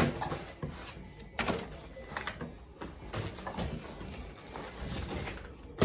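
Rustling and knocking as packaged items are handled and moved about, with a sharp knock right at the start and another near the end.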